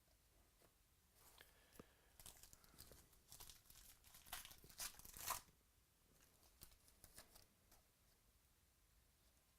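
A baseball trading-card pack wrapper being torn open and crinkled: a run of crackling tears that builds to its loudest about five seconds in, followed by a few faint clicks.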